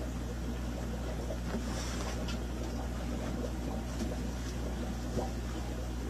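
Steady low hum and hiss of room background noise, with a few faint ticks and rustles of cardboard packaging and bubble wrap being handled.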